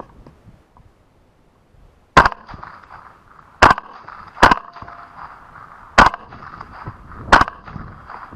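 Five suppressed rifle shots from an LWRCI Razorback II in 6.8 mm with a Bowers Vers 30T suppressor, fired at feral hogs. The first comes about two seconds in and the rest follow over the next five seconds at uneven spacing, each a sharp crack with a short ringing tail.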